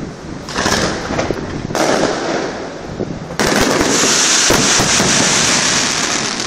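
Fireworks display: aerial shells launching and bursting in a run of sharp bangs over a continuous crackle. About halfway through it jumps suddenly to a louder, denser barrage.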